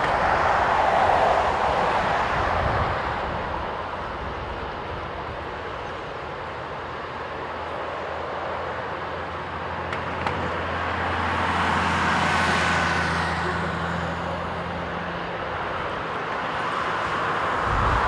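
Jet airliner on final approach, a Boeing 767: a steady broad engine roar that swells and fades. Around twelve seconds in it grows louder, with a high whine sliding down, and it rises again at the end as the aircraft comes close.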